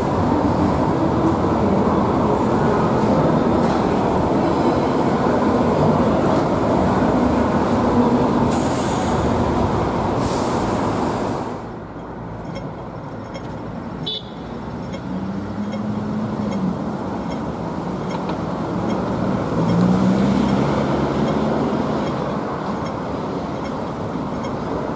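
Hong Kong MTR Light Rail car running on its tracks, a loud steady rumble with a low hum. About halfway through it drops to quieter road traffic as a second light rail car approaches.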